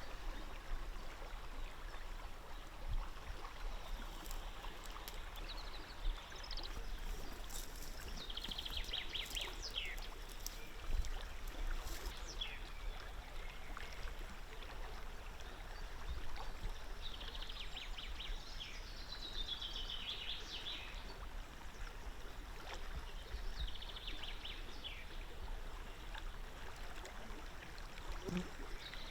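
River water flowing steadily, with a small bird singing short, rapid trills three times: about a third of the way in, just past the middle, and again later.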